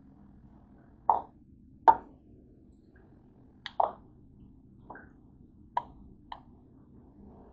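Eating sounds: about seven short, wet smacks and plops from the mouth at uneven intervals. The loudest two come about one and two seconds in.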